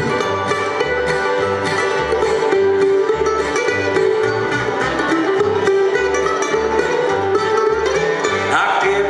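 Bluegrass band playing a tune on fiddle, acoustic guitars, mandolin and upright bass, the bass keeping a steady low pulse under it.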